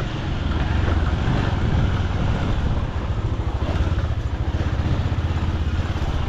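Motorcycle engine running steadily while riding along, a dense low rumble with a rapid flutter.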